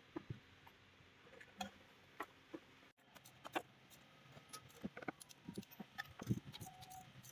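Scattered light clicks and taps of metal hand tools and engine parts being handled during engine work, with no steady machine running.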